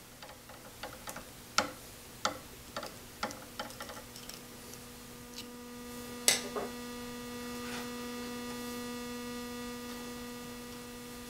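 Scattered small clicks and taps from hands fitting a spring to the fence's lift rod, with one louder click about six seconds in, over a steady electrical hum.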